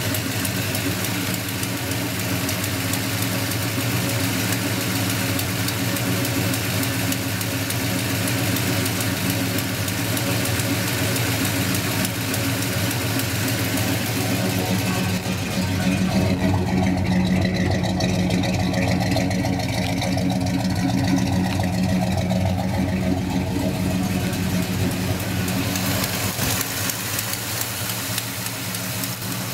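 1972 Chevrolet Monte Carlo's V8 idling steadily, with an exhaust leak. From about halfway through for some eight seconds the sound turns deeper and duller, then returns to its earlier tone.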